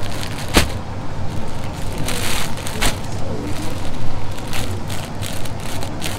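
Rustling and crinkling of cloth and a plastic garment wrapper being handled, with a few sharp clicks, over a steady low hum.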